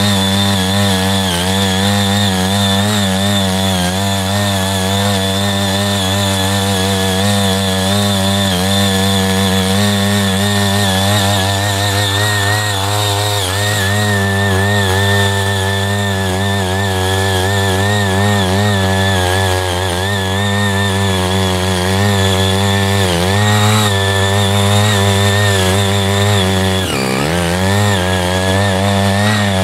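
Small engine of a CY80 walk-behind power tiller running at high speed as its tines churn through clods of soil, the note wavering constantly. Twice near the end the engine dips in pitch, the second time deeper, as it bogs under the load of the soil and picks up again.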